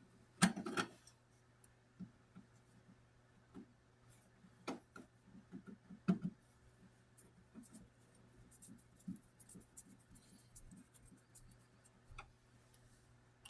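Wall receptacle cover plate being fitted and its screw driven in by hand: scattered light clicks, taps and scraping, with a sharper click about half a second in.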